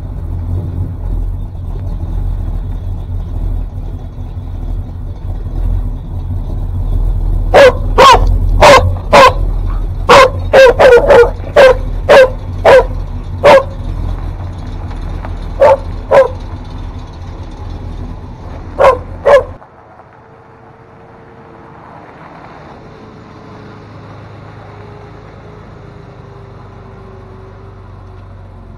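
A Mercury Mountaineer's engine running with a low, steady rumble while a dog barks in a string of about seventeen sharp barks in quick, uneven runs, the loudest sound. Both stop abruptly about two-thirds through, leaving a faint hum.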